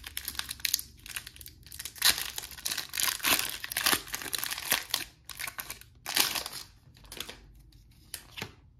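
Foil wrapper of a Pokémon booster pack being crinkled and torn open by hand: a dense run of sharp crinkles and rips that thins out to a few quieter rustles over the last couple of seconds.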